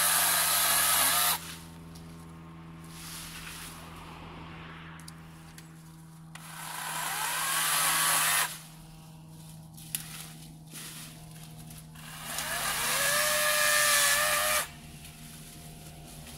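Florabest 40 V cordless electric chainsaw cutting through leafy branches in three runs of about two seconds each, its motor whine rising and dipping as the chain bites and stopping between cuts. A steady low hum sounds underneath throughout.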